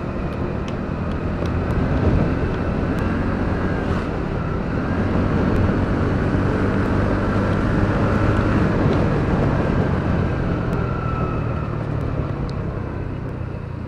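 A TVS NTORQ 125 XT scooter's single-cylinder engine runs at a steady cruise of about 55–60 km/h, mixed with steady road and wind noise.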